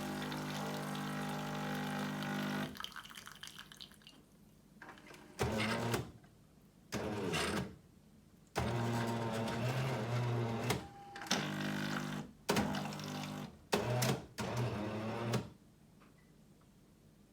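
Jura ENA 9 bean-to-cup coffee machine's water pump buzzing during its rinse cycle. There is a steady buzz for about the first three seconds, then a series of seven short buzzing spurts of a second or two each, stopping about fifteen seconds in.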